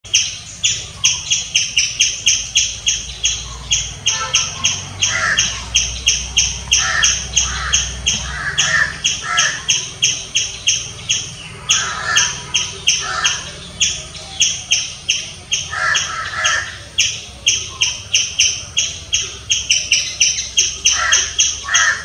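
Striped squirrel giving loud, sharp chirps in a fast, steady series, about three a second, without a break. Short bursts of a lower, rougher call come in every few seconds.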